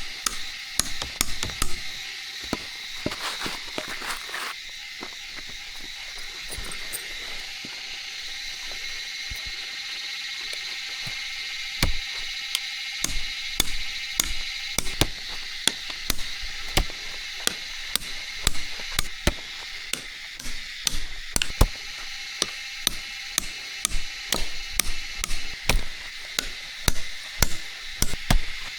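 Repeated sharp chopping strikes at an irregular pace, sparse at first and coming about twice a second in the last third, over a steady high-pitched drone.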